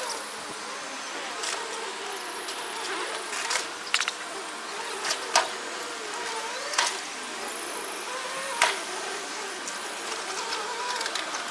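Toyota forklift truck's engine running with a wavering note, while the broken fibreglass wreckage of a yacht gives about five sharp cracks and clanks as it is pushed and shifted.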